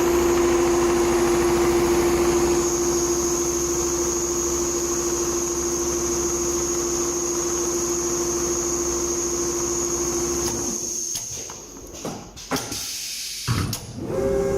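Multihead industrial leather sewing machine running steadily, a fast stitching rhythm under a steady whine. It stops about eleven seconds in, followed by a few sharp clunks.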